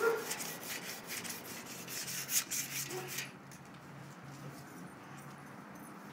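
A wad of wet aluminium foil scrubbed rapidly back and forth against a bicycle's chrome fender to polish off rust, giving a dense scratchy rubbing that stops about three seconds in.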